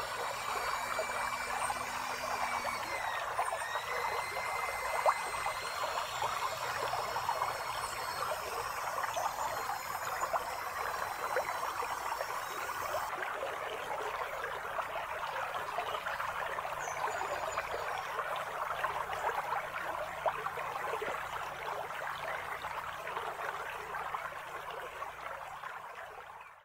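Shallow creek water trickling and running steadily, fading out near the end.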